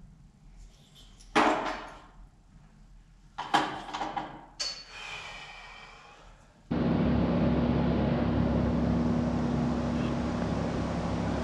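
A few sharp metal clanks and knocks, one with a short ringing, from parts being handled on a tube-frame race buggy. About two-thirds of the way in, a steady hiss with a low hum starts abruptly and carries on.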